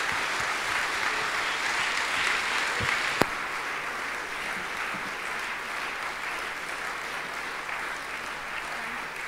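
Audience applauding, easing slightly after the first few seconds, with a single sharp click about three seconds in.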